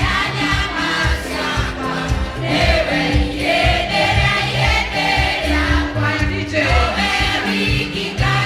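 Music with a group of voices singing over a pulsing bass line.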